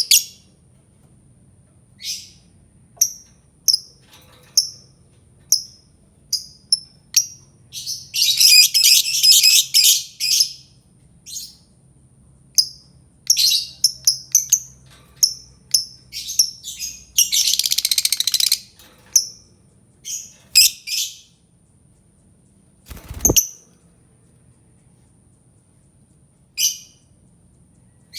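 Albino lovebird calling: sharp, high single chirps every second or so, broken twice by bouts of rapid continuous chatter about two seconds long. A single dull thump comes about three-quarters of the way through.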